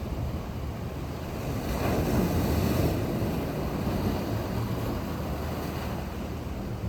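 Sea waves washing in, with one wave surging louder about two seconds in, over a steady low rumble of wind on the microphone.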